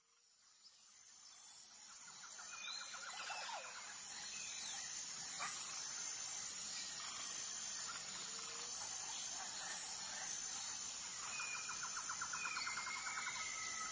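Forest ambience fading in over the first few seconds: a steady high insect hiss with several birds calling on top, including two bursts of rapid trilling and short gliding whistles.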